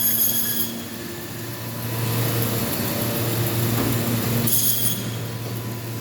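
Meat-cutting bandsaw running with a steady motor hum. The blade cuts through carcass with a high-pitched ringing whine in the first moment and again from about four and a half seconds in.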